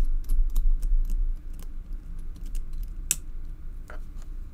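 Small metal clicks and taps of a dimple lock cylinder being worked with a steel pick, as its retaining pin is pushed in and the back piece twisted off. There is a sharper click about three seconds in, and a rubbing handling noise in the first second or so.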